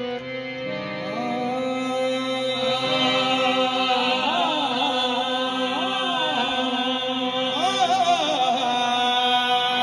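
Qawwali ensemble: harmoniums holding steady drone chords while a singer enters about a second in with a wordless, ornamented vocal line that slides up and down in pitch and grows louder.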